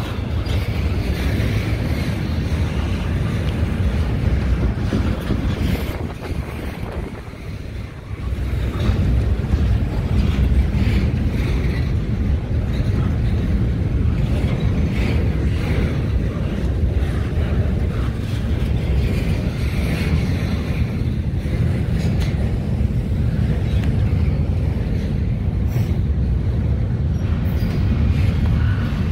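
Wind buffeting the microphone: a steady low rumble that eases briefly about seven seconds in, then comes back.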